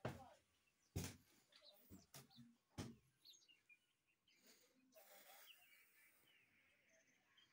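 About five footsteps knock on wooden floor boards and stair treads in the first three seconds, then faint bird chirps.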